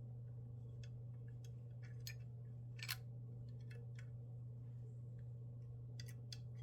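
Scattered light clicks and taps of small hardware and tools being handled during assembly, with one sharper click about three seconds in, over a steady low hum.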